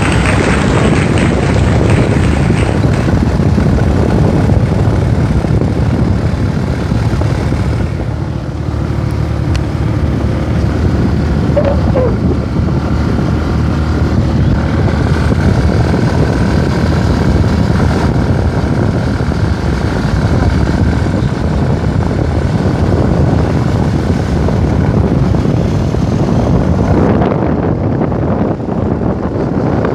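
Motorcycle engine running steadily while riding along a road, heard from the rider's seat with a steady low rumble of road and wind noise.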